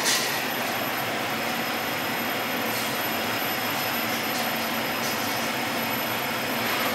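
Steady rushing hiss from a steamer pot boiling on a commercial kitchen stove, with a brief metallic sound at the start as the steel steamer lid is lifted.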